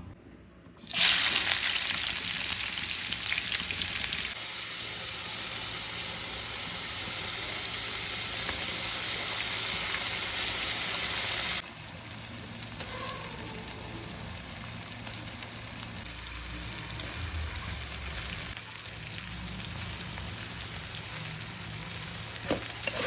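Food sizzling in hot oil in a cooking pot, starting suddenly about a second in as if something was dropped into the oil. The sizzle stays loud for about ten seconds, then drops abruptly to a quieter steady sizzle.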